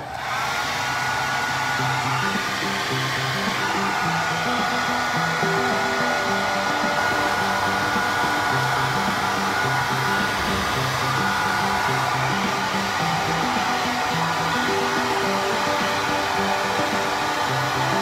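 Handheld hair dryer switched on and running steadily, blowing on a phone that went through the washing machine to dry it out.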